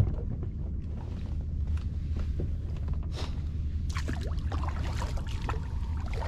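Kayak paddle dipping and splashing in the water a few times as the kayak gets under way, over a steady low hum.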